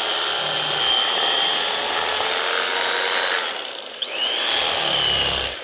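Cuisinart electric carving knife running, its motor whining steadily as the blades saw through roast pork. The whine dips briefly a little before the fourth second, picks up again with a rising pitch as the knife restarts, and stops near the end.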